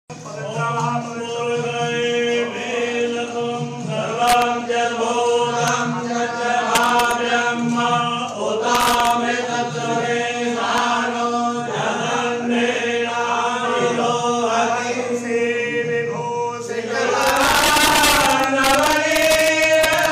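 Male voices chanting Hindu mantras in worship, a steady rhythmic recitation on held notes. From about three seconds before the end, a louder, noisier sound joins the chanting.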